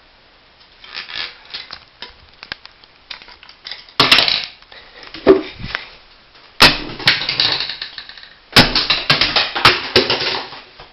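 Broken metal and plastic parts of a smashed 1.44 MB floppy disk drive clattering and crunching as they are handled, in several bursts of rattling knocks, the loudest from about four seconds in.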